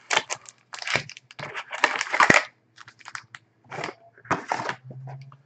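Foil trading-card packs and the box's cardboard tray being handled: irregular crinkling and rustling as the packs are pulled out and stacked, busiest in the first couple of seconds, then a few scattered rustles.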